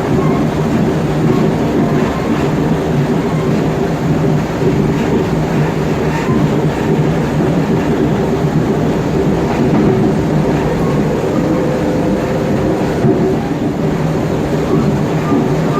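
Mafersa-built CPTM Série 1700 electric train, car 1726, under way with its traction motors giving a steady, fairly loud growling hum over the wheels' rolling noise. Its traction sound is a little louder than most cars of the series.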